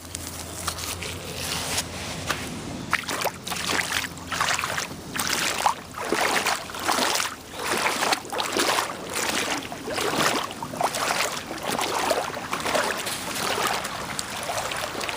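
Shallow creek water sloshing and splashing in surges about once a second, like someone wading through the stream.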